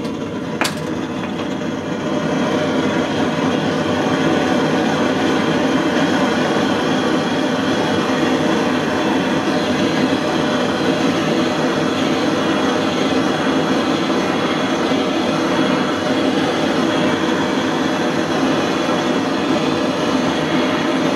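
Hose-fed gas blowtorch flame burning with a steady rushing noise, building up over the first couple of seconds, as it heats a metal candlestick for soldering.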